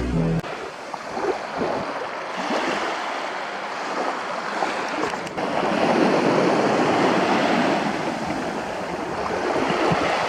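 Sea waves washing onto a beach, an even rushing sound that swells about halfway through and eases off near the end.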